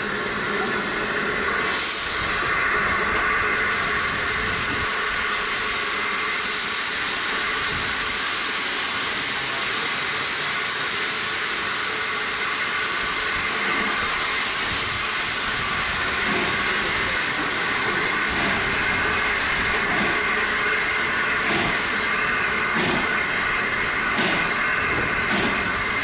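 Steam locomotive standing ready to depart, hissing steam steadily. Over the last few seconds a run of short beats comes in, quickening.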